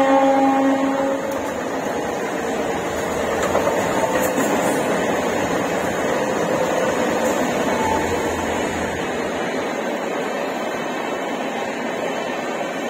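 A train horn's held note fades out about a second in. After it comes the steady rushing rumble of a suburban electric multiple unit and an express train running past on the rails, easing off slowly.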